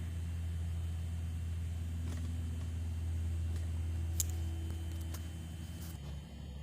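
Steady low machine hum, with a few faint clicks about two, four and five seconds in; the hum drops and changes character near the end.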